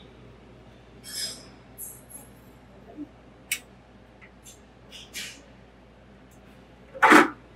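Buffet-room ambience: a steady low hum with scattered short clinks and knocks of serving dishes and cutlery, and one louder short clatter near the end.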